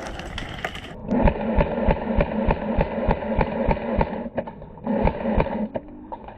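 A quick regular series of thumps, about three a second, under a steady rattling, scraping noise. It starts about a second in, breaks off after about four seconds, and comes back briefly near five seconds.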